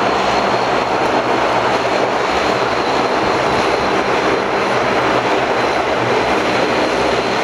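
Airliner turbofan jet engines running at close range: a steady, loud rush with a thin high whine.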